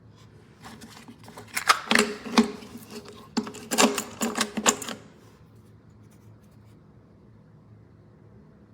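Sharp metallic clicks and clinks, some with a short ring, as small steel hex bits and their case are handled, for about the first five seconds. A faint steady room hum follows.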